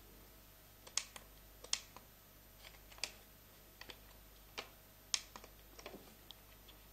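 Plastic push-buttons on a Computherm wireless thermostat clicking as they are pressed, a dozen or so short, sharp clicks at an irregular pace.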